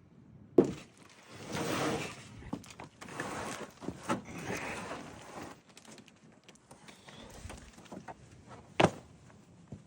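A heavy boxed generator being shoved and dragged in a truck bed: scraping and rustling in stretches, with a sharp knock about half a second in, a few smaller knocks in the middle, and a loud knock near the end.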